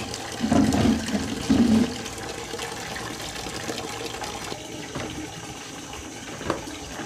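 Water from an outdoor tap running steadily and splashing into a plastic bucket. There are two louder bumps in the first two seconds and a single sharp knock near the end.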